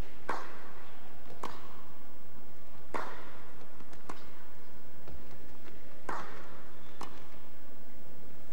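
Tennis rally: a tennis ball is struck by rackets and bounces on the court. It makes a series of sharp pops, about one every second or so.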